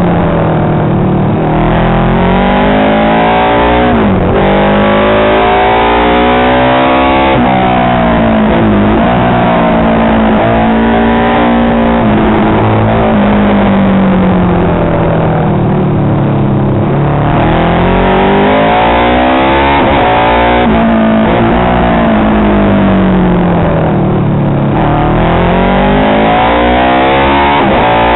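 Classic racing motorcycle engine running hard on track. Its note climbs and drops over and over as the throttle is opened and closed through the bends.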